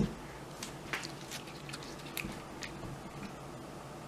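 Quiet handling sounds of fresh spinach leaves being torn by hand and dropped into a bowl of beaten egg: a few faint scattered clicks and rustles.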